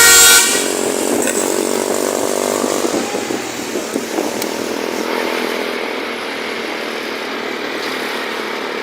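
A multi-note bus telolet horn cuts off about half a second in. A steady small engine, likely a motorcycle, runs on after it.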